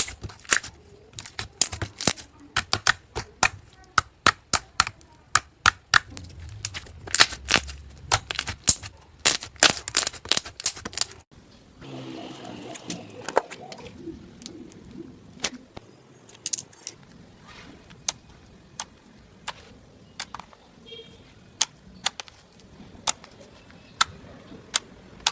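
Slime being squeezed and worked, giving rapid sharp clicking pops of trapped air. The pops come thick and loud for about the first eleven seconds, then, after a cut, fewer and softer.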